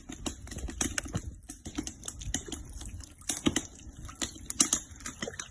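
Wood campfire crackling, with irregular sharp pops several times a second.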